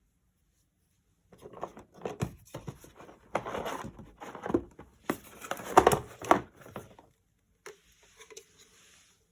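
Irregular rustling, crinkling and light clicks of something being handled, starting about a second in and dying down near the end.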